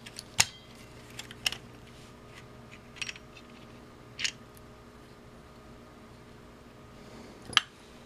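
Scattered small clicks and taps of a handheld multimeter being taken apart by hand: a screwdriver working at the circuit board and the board being lifted out of its plastic case. The loudest, sharpest click comes near the end.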